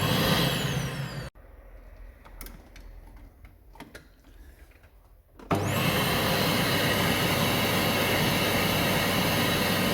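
Vacuum cleaner motor whining up to speed, cut off about a second in; then a few faint clicks. About five seconds in it starts again with a rising whine and runs steadily: the cleaner working again on its newly replaced plug.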